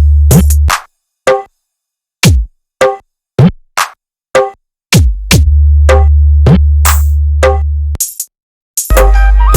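Electronic DJ sound-check remix: a drum-machine beat of single kicks whose pitch drops, alternating with long, heavy sub-bass blocks that cut off abruptly and short silent breaks. A held synth note enters near the end.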